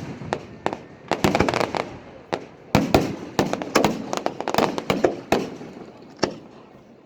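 Fireworks going off: a rapid series of sharp bangs and crackles in clusters, thinning out near the end.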